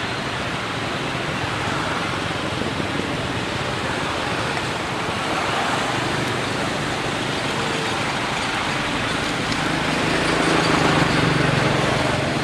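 Steady outdoor background noise, swelling slightly about ten seconds in.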